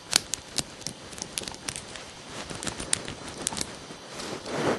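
Lock pick and tension wrench working the pins of a Master Lock 131T padlock during single pin picking: small, sharp metallic clicks at irregular spacing, a few a second, as the pins are lifted and set. A brief soft rushing noise near the end.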